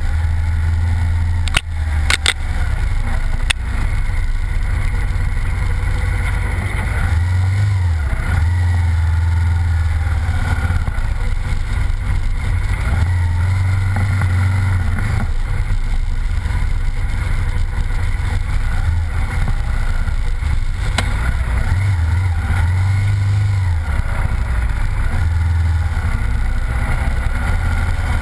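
Honda Varadero motorcycle engine running as it rides a muddy dirt trail, with heavy wind rumble on the helmet-mounted microphone. The low rumble swells and eases several times, and a few sharp clicks come about two seconds in.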